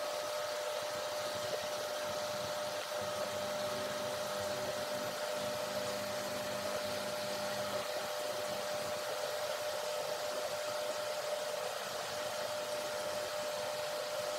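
Steady machine-like whirring: an even hiss with one constant mid-pitched whine that does not change.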